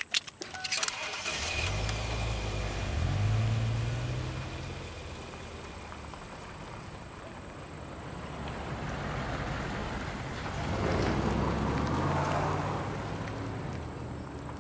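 SUV engines running as the vehicles drive slowly past, swelling about three seconds in and again about eleven seconds in. A few sharp clicks come in the first second.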